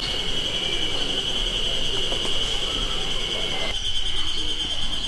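Steady, high-pitched drone of a chorus of insects in summer woodland, with a low background that thins out about three-quarters of the way through.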